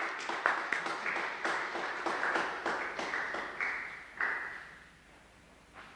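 A small congregation applauding in a church, a few irregular handclaps a second that thin out and die away about four seconds in.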